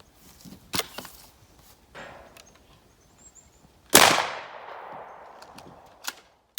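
A single 20-gauge shotgun shot, firing a homemade round loaded with a modified Nerf dart, with its echo dying away over about two seconds. A sharp click comes a few seconds before it.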